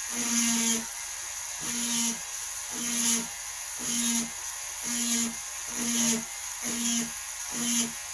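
A Dremel Micro rotary tool drilling dry into hard agate with a small diamond ball bit, dabbed in and out about once a second: each touch brings up the motor hum and a high grinding hiss, which fall away between touches.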